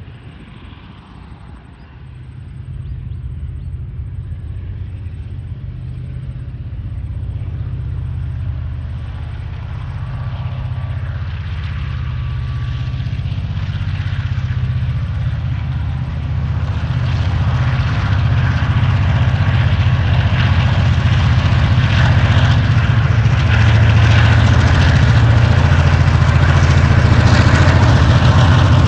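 Diesel locomotive hauling a loaded coal train up a grade under power, its engine drone coming in about two seconds in and growing steadily louder as it approaches.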